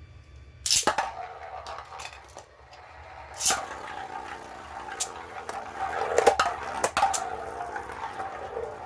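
3D-printed Beyblade spinning tops launched into a stadium with a sudden rip under a second in. They then spin with a steady whir, clacking sharply against each other several times.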